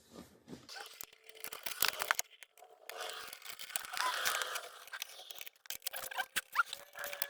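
Hands working plastic clips and wiring loose: irregular rustling and scraping with many sharp plastic clicks.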